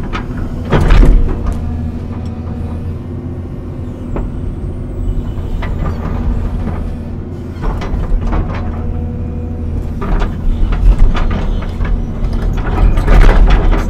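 Large excavator's diesel engine running steadily under hydraulic load as the machine swings and moves its bucket, with several metallic clanks and knocks, the loudest about a second in and near the end.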